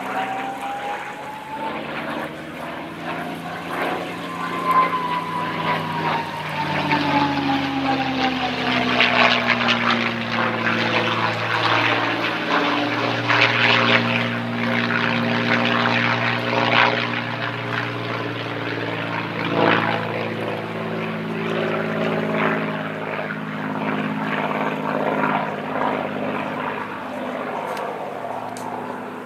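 North American P-51D Mustang's Packard Merlin V12 engine and propeller in flight through aerobatic maneuvers, the engine note sliding up and down in pitch. A thin high whine slides down in pitch from about four to ten seconds in. The sound grows louder towards the middle and fades near the end as the plane draws away.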